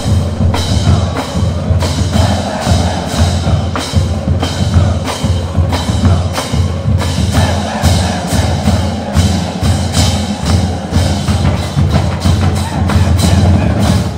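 Marching band playing at full volume: brass over a drumline beating out a quick run of sharp hits.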